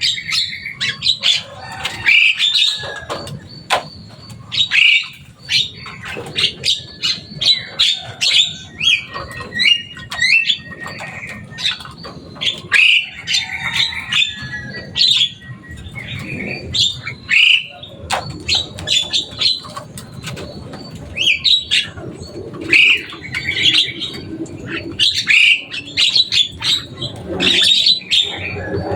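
Javan myna (jalak kebo) calling noisily: a busy, continuous run of short, harsh squawks and chirps, several notes a second.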